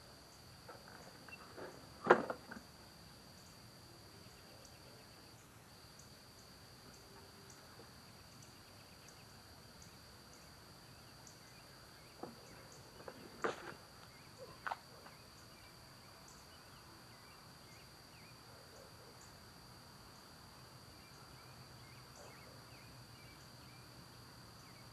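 Faint background with a steady high-pitched insect trill. A few sharp clicks and knocks break it, the loudest about two seconds in and a small cluster around thirteen to fifteen seconds in.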